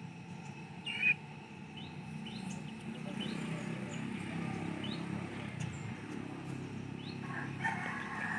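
Small birds chirping: a handful of short, rising chirps, the loudest about a second in, over a steady low outdoor background.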